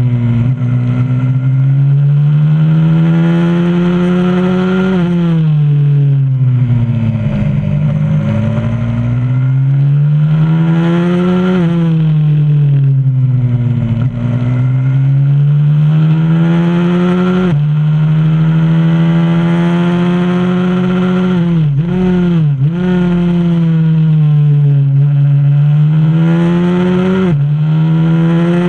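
A 125cc supermoto pit bike's single-cylinder engine, recorded on board at full throttle around a circuit. The pitch climbs and drops sharply at each gear change, sinks when closing off for corners, then climbs again, with a few quick blips on downshifts past the middle.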